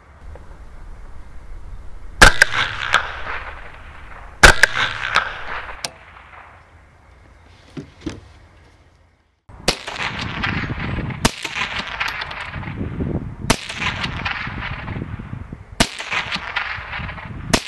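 A CZ 512 semi-automatic .22 WMR rifle firing single shots. There are two sharp cracks a couple of seconds apart with the moderator fitted, each followed by small clicks. Then comes a run of five more shots about two seconds apart over a steady rushing noise.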